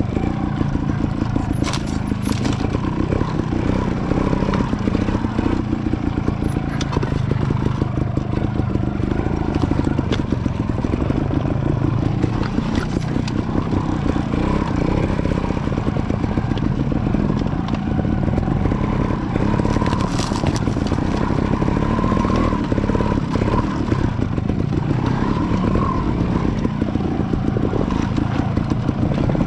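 Trials motorcycle engine running steadily as the bike is ridden over rocky ground, with a few brief knocks and clatter from the bike over the rocks.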